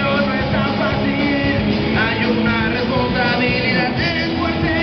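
Rock band playing live: amplified electric guitars and drum kit, with a voice singing over them.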